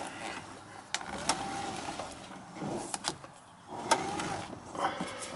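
Saturn Vue electric power-steering motor whirring in uneven spurts as the steering wheel is turned with one finger, with a few sharp clicks in between.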